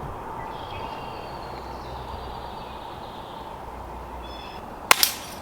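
A pellet gun firing near the end: a sharp crack followed a moment later by a second, smaller crack. Before it, a steady outdoor background with faint bird chirps.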